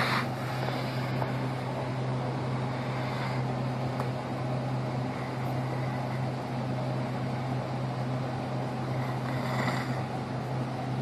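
A steady low hum, like a motor or engine running, with a couple of faint brief sounds about three seconds in and near the end.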